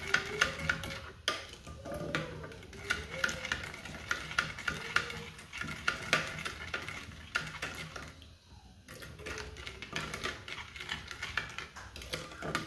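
Metal spoon stirring thin barbecue sauce in a ceramic bowl, clinking against the bowl several times a second, with a short pause about eight seconds in.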